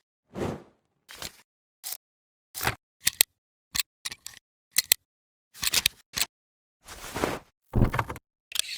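Glitch / film burn sound effect: an irregular string of short crackling clicks and bursts of noise, each cut off abruptly by dead silence, with a few longer, heavier bursts in the second half.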